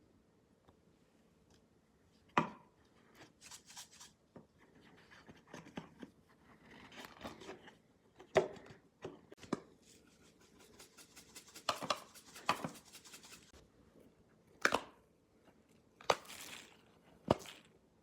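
A Simple Dimple fidget toy being handled, its silicone bubble buttons pressed with sharp, separate clicks about eight times at irregular spacing. Softer scratchy rubbing and fumbling fills the gaps between presses.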